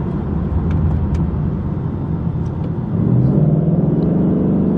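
Ford Mustang GT's V8 engine and road noise while driving, the engine note rising and getting louder about three seconds in as the car accelerates.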